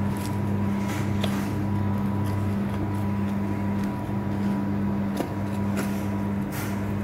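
Steady low electric machine hum, the loudest thing throughout. Over it come a few faint scrapes and ticks of a boning knife cutting lamb on a plastic board.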